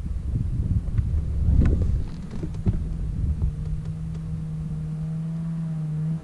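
Snowmobile engine running. For the first two seconds there are rumbling knocks and wind on the microphone, then it settles into a steady hum at an even pitch.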